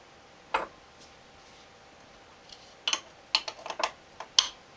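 Metal teaspoon and small glass salt jar clinking: a single click about half a second in, then a quick irregular run of clicks and taps from about three seconds in.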